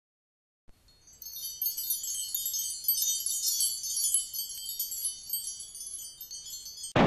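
Magical sparkle sound effect: a shimmering cascade of high wind-chime tinkles. Right at the end a sudden, loud noisy blast cuts in.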